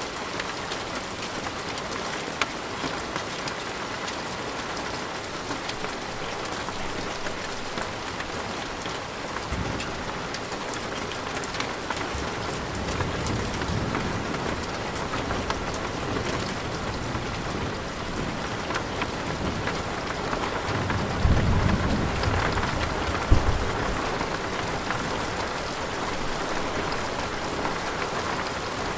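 Steady rain pattering throughout a thunderstorm. Low rolls of thunder rumble about ten seconds in and again around thirteen seconds, and a louder roll builds from about twenty-one seconds, with a sharp crack about two seconds later.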